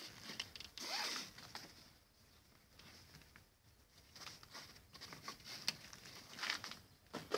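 Rope being pulled and drawn tight through the girth ring under a pack animal's belly as the packsaddle is cinched: short rasping pulls of rope sliding through the ring, with a quieter pause in the middle.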